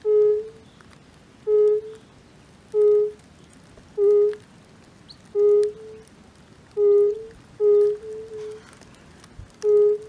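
Fire-bellied toad calling: a series of short, soft hooting notes, about eight of them, one every second or so, a few followed by a quieter second note.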